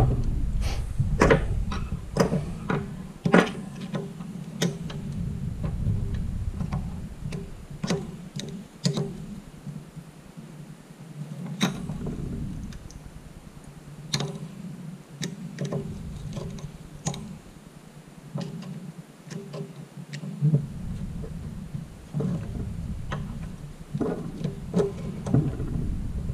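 Small steel hand tools, a pick and a screwdriver, clicking, tapping and scraping irregularly against a floor jack's pump-piston circlip and spring retainer while the circlip is being pried out. A low rumble comes and goes underneath.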